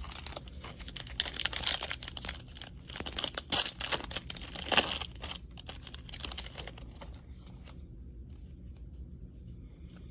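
Foil wrapper of a baseball card pack being torn open and crinkled: a run of crackling rips for about the first five seconds, then only faint rustling.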